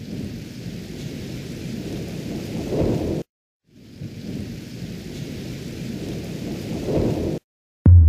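Thunderstorm sound effect: rain and rumbling thunder that swell and then cut off abruptly, the short loop restarting twice. A sudden loud low boom comes in right at the end.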